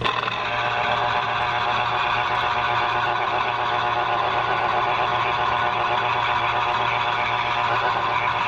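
Electric citrus juicer's motor running steadily, its reamer cone spinning under an orange half pressed down onto it. A steady whirring whine that starts abruptly as the fruit is pressed.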